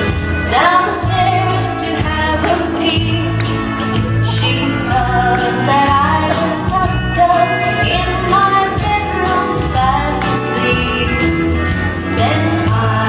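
A stage song playing: a singer's voice over band backing with a steady beat.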